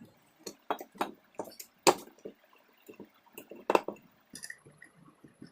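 Irregular small metallic clicks and knocks from a bearing puller being fitted and turned to draw the ball bearing out of a ceiling fan's upper cover. The loudest two come about two seconds and nearly four seconds in.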